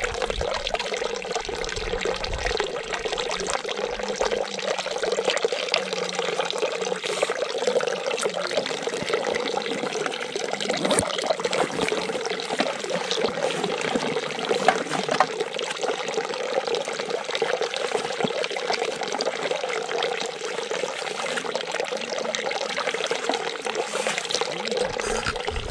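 Running water flowing steadily and continuously.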